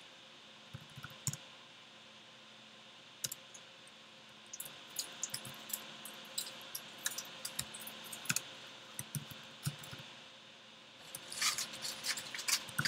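Computer keyboard being typed on: irregular runs of faint keystroke clicks with short pauses between them, the busiest run near the end.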